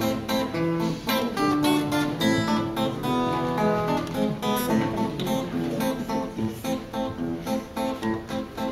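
Acoustic guitar strummed in a steady rhythm, playing an instrumental passage between sung verses of a song.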